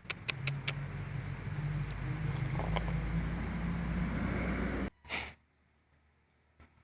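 A few sharp clicks, then a steady low rumble of a running engine that cuts off abruptly about five seconds in.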